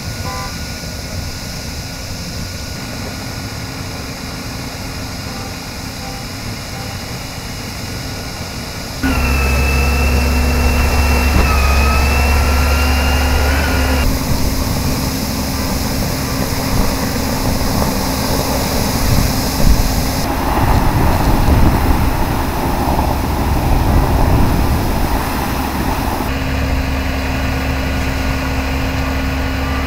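Vehicle engines idling, a steady low drone that jumps abruptly in level several times as the shots change. One stretch has a loud rumble with a thin steady whine over it. Another is a steady rushing hiss, the water spraying from a sheared fire hydrant.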